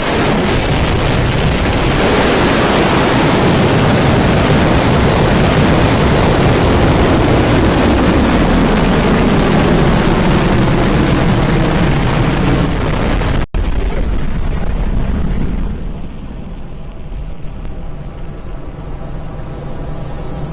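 Firefly Alpha rocket lifting off, its four kerosene-fuelled Reaver first-stage engines running at full thrust as a loud, steady, crackling rumble. The sound cuts out for an instant, then grows noticeably quieter for the last few seconds as the rocket climbs away.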